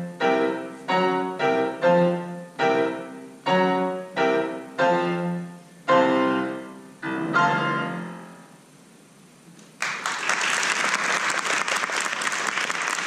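Grand piano playing a run of struck chords, each ringing and dying away, ending on a final chord that fades out. After a short pause, about ten seconds in, audience applause starts and keeps going.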